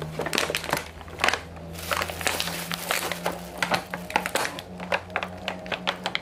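Clear plastic wrap and a plastic food tray crinkling and crackling in quick, irregular clicks as hands pull the wrapping open, over a steady low hum.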